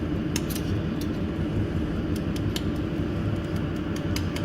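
Steady low hum of a jewelry laser welding machine running, with a few scattered light clicks.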